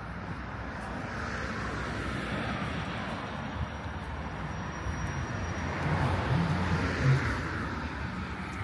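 A motor vehicle passing by, a steady rushing noise that swells and peaks about six to seven seconds in.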